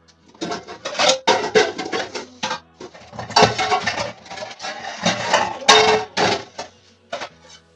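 Dishes and pots clattering as they are handled and stacked away on shelves: a quick run of knocks and clinks that goes on for several seconds, over faint background music.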